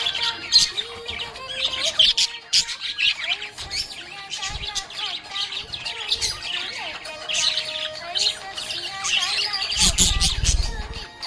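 Budgerigars chirping and warbling in a dense stream of quick, high chirps, over a background music melody. A low rumble comes in for about a second near the end.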